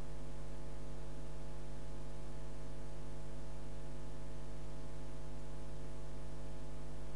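Steady electrical mains hum: a constant low buzz with many even overtones over a faint hiss, unchanging throughout.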